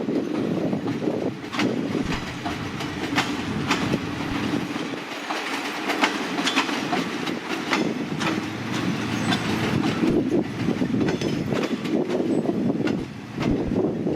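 Train rolling along the track at low speed, its wheels clicking over the rail joints in an uneven series over a steady rumble.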